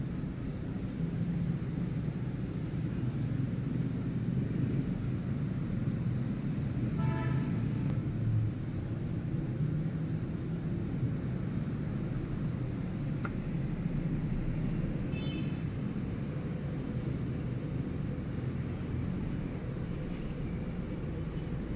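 Cat purring close up, a steady low rumble, while it grooms a kitten, with a faint high whine behind it. Two brief higher chirps come about seven and fifteen seconds in.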